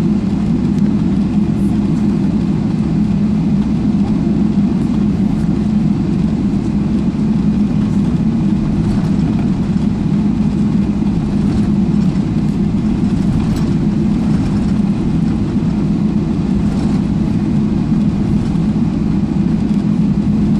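Steady low cabin rumble inside a Boeing 777-300ER taxiing, its GE90 engines at low taxi power, heard from a window seat.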